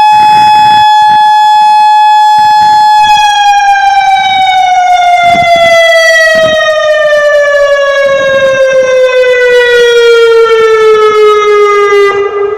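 Federal Signal Modulator 6024 II electronic outdoor warning siren sounding its alert tone during a test. It holds a steady pitch, then about three seconds in starts a slow, even fall in pitch that lasts about nine seconds and cuts off near the end.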